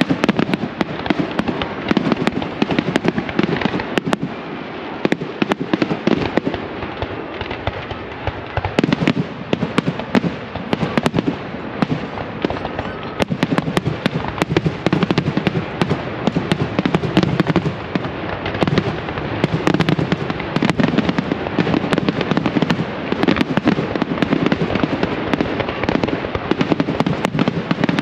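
Aerial fireworks shells launching and bursting in rapid succession: a dense barrage of sharp bangs over continuous crackling.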